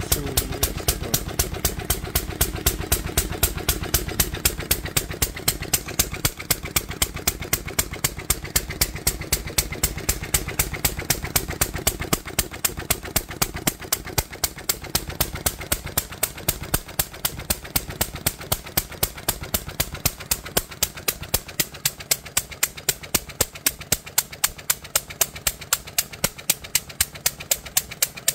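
A 1946 International Harvester Type LB 1½ hp single-cylinder stationary engine running steadily on its own, with a sharp, evenly spaced exhaust pop a few times a second.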